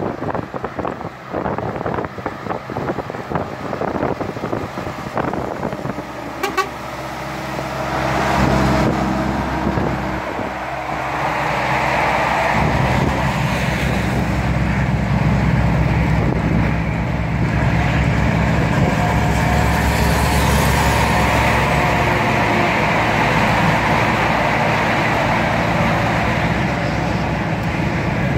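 Truck cab interior at highway speed: gusty wind buffeting at first, then a steady diesel engine drone with road noise that swells over a few seconds and holds.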